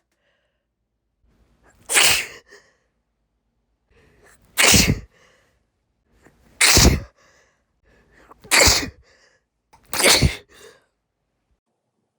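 A woman sneezing five times in a row, about one sneeze every two seconds, each with a faint breath in just before it.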